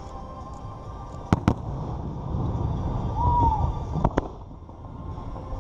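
Fireworks display: aerial shells bursting with sharp bangs, two in quick succession about a second in and two more about four seconds in, over a steady low rumble.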